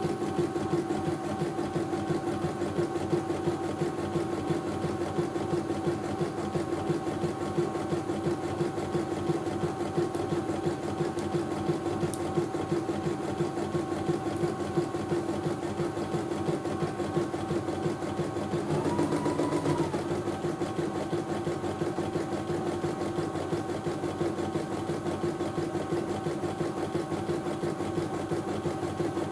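CNY E900 computerised embroidery machine stitching a design: steady, rapid needle stitching over a constant motor hum. About two-thirds of the way through there is a brief whine that rises and then falls.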